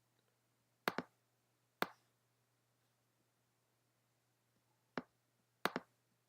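Computer mouse clicks: a double-click about a second in, a single click soon after, another single click and a double-click near the end, over a faint steady hum.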